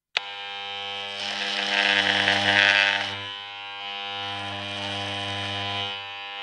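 Sustained synthesized drone chord that starts suddenly, with a high shimmering sparkle swelling over it from about one to three seconds in, like a title-reveal sound effect.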